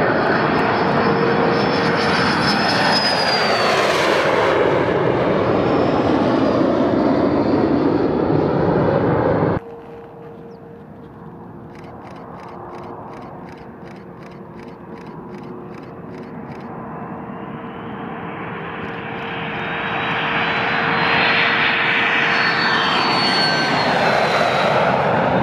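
Scaled Composites Model 401's single Pratt & Whitney JT15D-5D turbofan at takeoff power, a loud jet roar with a whine that falls in pitch as the aircraft passes. About ten seconds in it breaks off suddenly to a quieter engine sound, whose whine rises and grows louder again over the last seconds as the jet comes closer.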